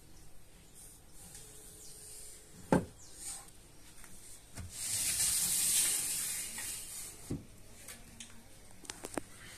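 A terracotta bowl being set down on pebble substrate: a sharp knock, then a couple of seconds of gravelly scraping and rustling as it is pushed into the pebbles, another knock, and a few small clicks near the end.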